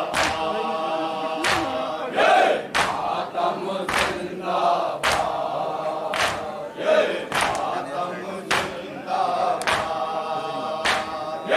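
A group of men chant a nauha (mourning lament) in unison, led by one voice. Sharp strikes keep a steady beat of roughly one a second, with lighter strikes between: the hand-on-chest beating of matam.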